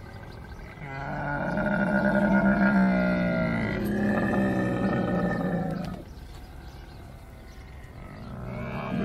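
A camel groaning: one long, low call of about five seconds starting about a second in, with a second call beginning near the end.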